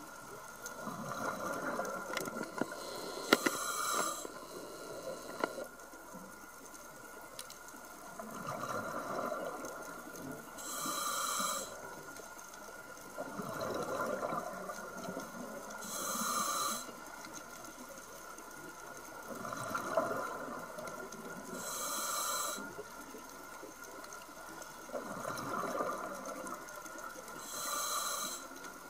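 Scuba diver breathing through a regulator underwater: a short high hiss on each inhale and a longer bubbling rush on each exhale, repeating about every five to six seconds, five breaths in all.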